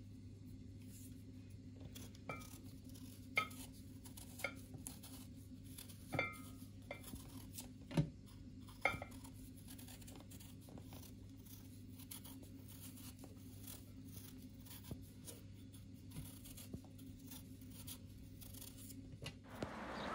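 Kitchen knife peeling a raw potato by hand, a run of short scraping cuts through the skin. A few sharper clicks ring briefly with a metallic tone, over a low steady hum.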